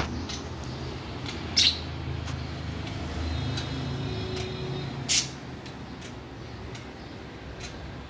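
Caged budgerigars chirping, with two short, sharp squawks about one and a half and five seconds in and a brief warble between them, over a steady low rumble.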